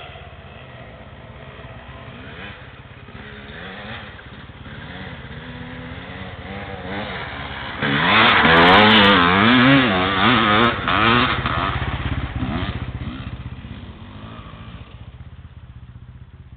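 Enduro dirt bike engine revving up and down as the bike comes closer. It is loudest as it passes about eight seconds in, then fades as it rides away.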